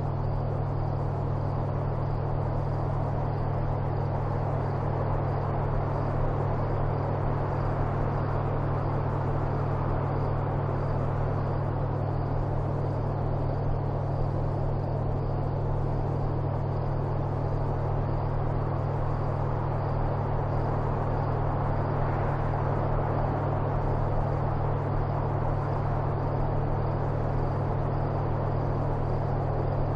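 A steady low rumble with an even hiss over it, unchanging throughout.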